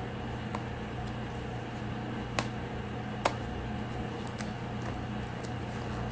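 Steady fan-like hum, with a few light clicks and two sharper clicks about two and a half and three and a quarter seconds in, from a smartwatch box and its parts being handled and opened.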